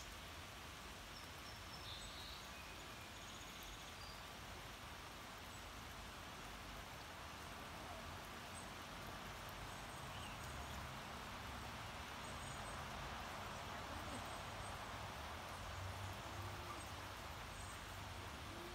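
Steady, faint hiss of a light spring rain shower, with a few brief, faint bird chirps.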